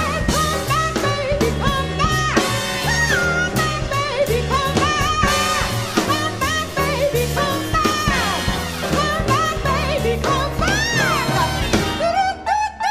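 A female jazz singer with a big band playing swing: trumpets, saxophones and trombones over bass and drums. Near the end the band briefly stops short.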